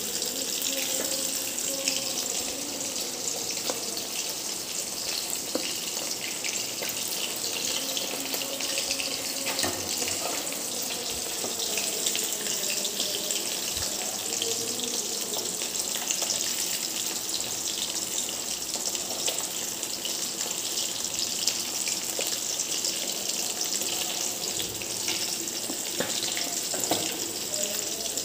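Fish steaks shallow-frying in oil in a pan: a steady sizzling hiss with dense crackling of spitting oil.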